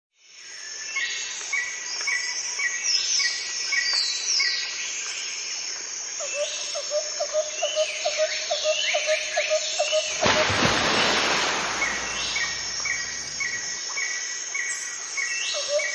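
Birds calling in repeated short chirps over a steady background hiss, with a run of quick lower calls about six seconds in. About ten seconds in, a few seconds of loud rushing noise covers the calls.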